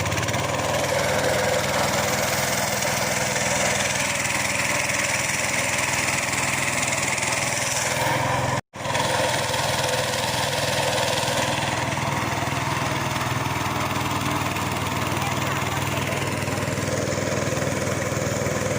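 Small boat engine running steadily at an even speed, with a brief cut to silence about a third of the way in.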